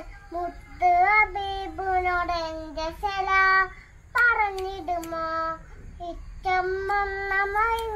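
A young child singing a tune in several phrases with short breaks, holding long notes.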